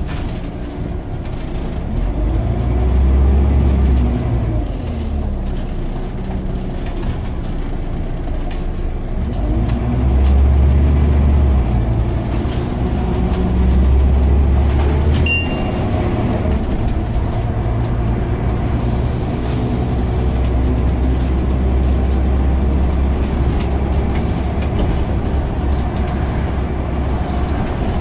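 Scania OmniCity bus's diesel engine heard from inside the saloon while the bus drives, its drone rising and falling in pitch with low rumbling swells as it pulls away and accelerates several times. A short high-pitched ding sounds about halfway through.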